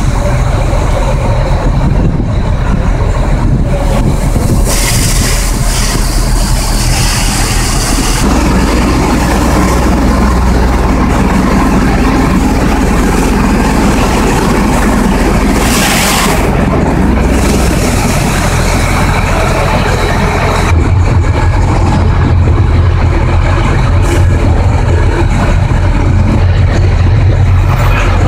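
Fire apparatus diesel engines running steadily. A hiss of a few seconds comes in about five seconds in, a shorter hiss about sixteen seconds in, and the engine sound grows louder about twenty seconds in.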